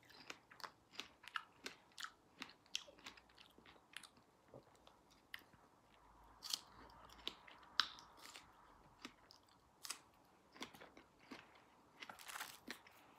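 A person chewing and biting into fresh strawberries: quiet, short mouth clicks, about three a second.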